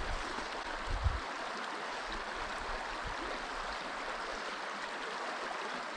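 Trout stream water running steadily over riffles, an even rushing wash. A low bump about a second in.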